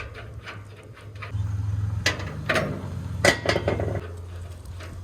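Metal tools and parts being handled: a scatter of sharp metallic clinks and knocks, the loudest about two and three seconds in, over a steady low hum.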